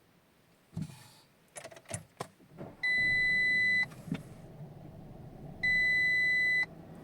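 A thump and a few clicks, then two long, steady electronic warning chimes, each about a second long, from a 2021 Audi Q3's dashboard as fault warnings come up. The car's 12 V battery has failed. A low steady hum runs underneath from shortly before the first chime.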